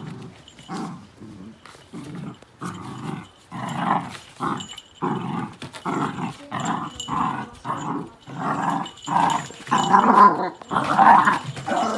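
A dog growling and barking in a run of short repeated bursts, about one or two a second, louder near the end.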